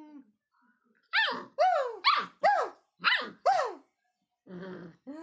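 A quick run of six short, high barks, each rising and falling in pitch, then a rougher, hoarser call near the end.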